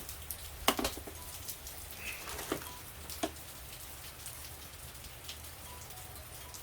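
Steady rain falling, with a few short light clicks or taps over it.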